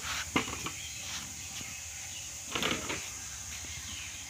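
Steady high-pitched insect drone, with a sharp knock about half a second in and a short noisy rush about two and a half seconds in.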